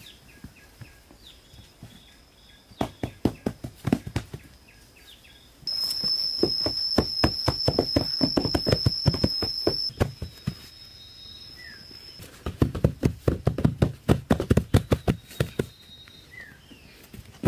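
Grass sod being tamped down onto bare soil: runs of quick, dull thumps, the busiest in the middle and again near the end. Through the middle stretch a high steady whine sounds alongside.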